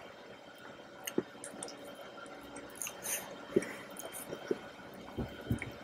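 Close-miked wet, sticky mouth sounds of eating soft chocolate mousse cake: scattered smacks and small clicks, a few louder ones in the second half.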